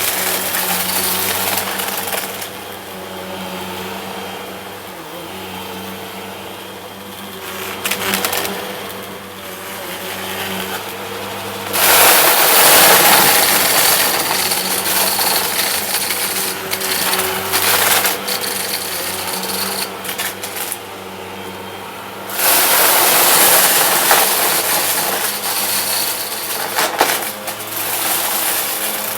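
Vacuum cleaner running steadily while sucking up confetti, the crunch of the confetti rattling through it over the motor's hum. The crunch surges loud twice, about twelve seconds in and again about twenty-two seconds in.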